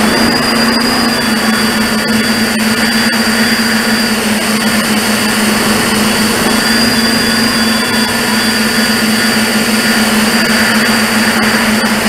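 Tricopter's three brushless motors and propellers whirring in flight, heard from a camera mounted on the craft: a steady drone with a thin high whine over a constant hiss, its pitch shifting slightly with the throttle.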